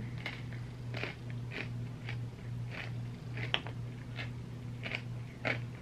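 Mouth sounds of eating an ice cream sundae from a spoon: soft, wet smacks and clicks of chewing and swallowing, irregular, about a dozen in a few seconds.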